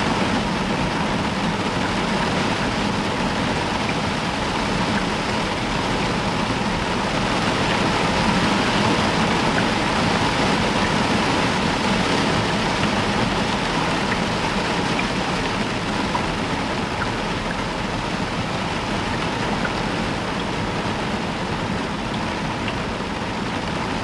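Heavy rain falling steadily on a roof, an even hiss with a few faint drop clicks and no thunder.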